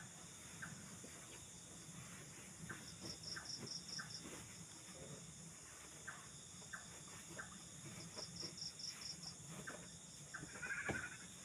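Night-time insect chorus: a steady high drone, with an insect trilling in short pulsed bursts about every four to five seconds. There are faint scattered clicks, and a brief louder call near the end.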